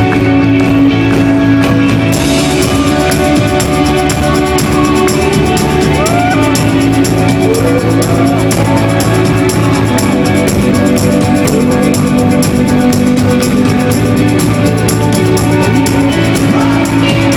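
Live rock band playing a song at full volume, recorded from the audience, with the drums and cymbals growing busier and brighter about two seconds in.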